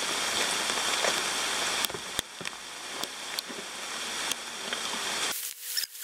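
Steady hiss of light rain falling, broken by a few sharp clicks. About five seconds in the rain noise cuts off abruptly, giving way to a much quieter track with a steady hum and sharp ticks.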